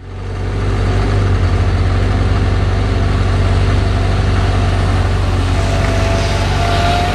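PistenBully 400 snow groomer's diesel engine running steadily with a deep, pulsing rumble as the tracked machine comes on, pushing snow with its front blade. A faint whine rises in slightly near the end.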